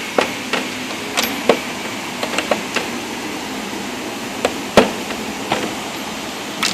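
Metal deep-well impact sockets clinking and knocking as they are handled and moved around: a dozen or so sharp, separate clicks, the loudest about five seconds in, over a steady background hiss.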